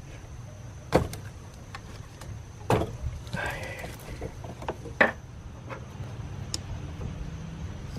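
Tools and hands working at the fuel filter's stuck hoses: three sharp knocks at about one, nearly three and five seconds in, with a stretch of scraping between the second and third and smaller clicks, over a steady low hum.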